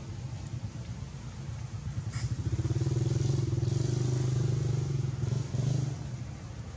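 A motorcycle engine running close by with a low, fast-pulsing drone that swells about two and a half seconds in and fades again about three seconds later, as if a motorbike passes.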